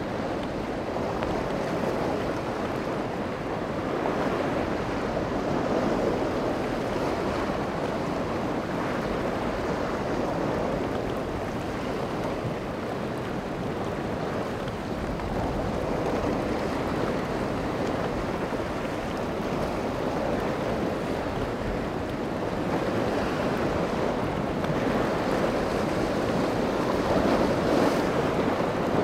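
Steady rush of wind and surf, with wind blowing on the microphone; the noise rises and eases slowly over the stretch.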